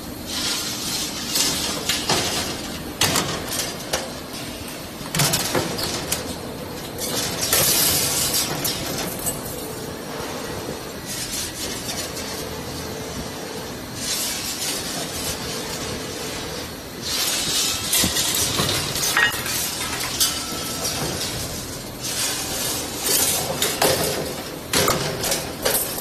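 Servo-driven 2D wire bending and butt welding machine running: repeated sharp metallic clicks and clanks from the bending head working the wire, with bursts of hiss and a faint steady hum.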